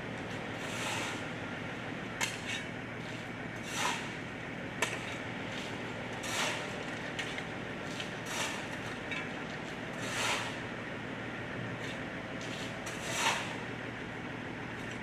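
Hand demolition of a house's roof: irregular knocks and scrapes of wood and plywood being pulled apart, one every one to three seconds, over a steady low drone.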